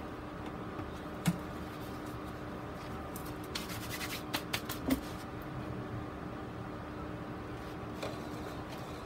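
Handling noise from hands working at a table: one sharp click about a second in, then a quick cluster of clicks and light scratches around the middle, over a steady background hum.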